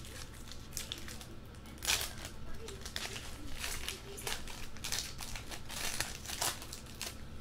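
Foil trading-card pack being torn open and its wrapper crinkled by hand: an irregular run of crackles and rustles, the sharpest about two seconds in.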